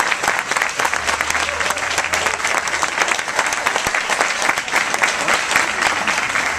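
Audience applauding, a steady, dense clapping that runs on without a break.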